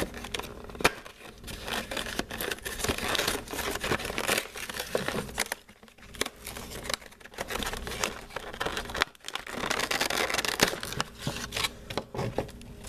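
Cardboard backing and clear plastic blister of a toy car's retail package being torn open and crinkled by hand: continuous crackling and rustling full of small cracks, with two short lulls partway through.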